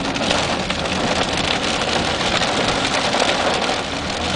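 Heavy rain pelting a car, a dense steady patter, with the car's engine running underneath.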